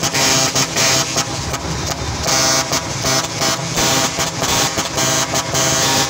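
Trucks' 'ong vàng' (golden bee) horns blaring together, many tones at once in long blasts broken by frequent short gaps.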